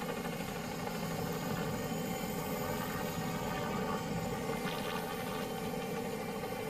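Steady engine drone, running evenly with no change in speed.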